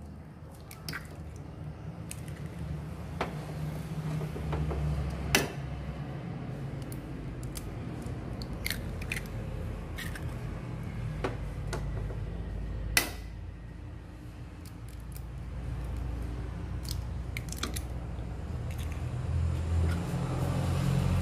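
Eggs being cracked and their shells pulled apart over a plastic jug: scattered sharp clicks and cracks of shell, two louder ones about five and thirteen seconds in, over a steady low hum.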